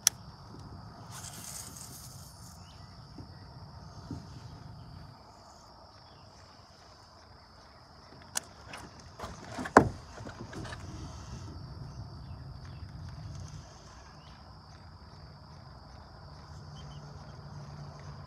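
Steady high-pitched insect drone, with the handling and reeling of a baitcasting reel. There are a few sharp clicks and a loud knock a little past the middle.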